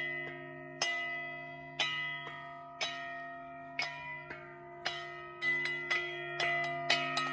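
A set of church bells of different pitches rung by hand in a bell-ringing peal. There is a main strike about once a second with lighter strikes between, and the low bells hum on underneath. About five seconds in, the strikes come faster and more bells join.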